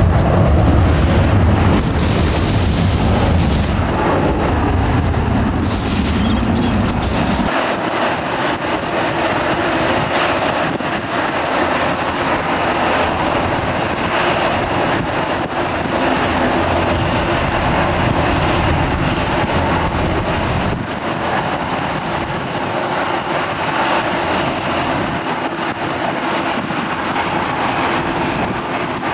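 Jet airliner engines running as the aircraft move on the ground: a steady rushing whine. A deep rumble underneath for the first several seconds cuts off suddenly.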